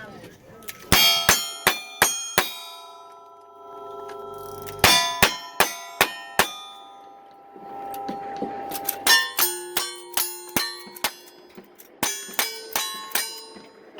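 Rapid gunshots, each with the ringing clang of a hit steel target: a string of five shots about a third of a second apart, a second string of five after a short pause, then a longer run of about ten shots near the end.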